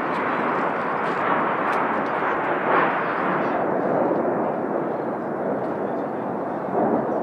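Steady jet roar from Blue Angels F/A-18 Hornets passing in formation, swelling briefly about three seconds in.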